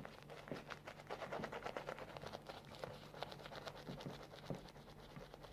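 Shaving brush working lather in a ceramic shaving scuttle: a fast run of small wet clicks and scratches from the bristles. It is busiest in the first few seconds and thins out toward the end. The lather is thick, creamy and peaky, built to a finish.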